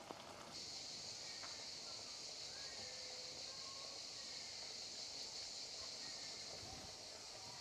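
A chorus of cicadas singing: a steady, high, unbroken hiss that starts about half a second in.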